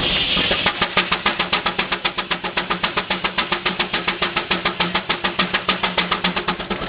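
Advance Rumely steam traction engine working on the belt to a sawmill: a brief hiss, then rapid, even exhaust chuffs, about eight a second, starting about half a second in.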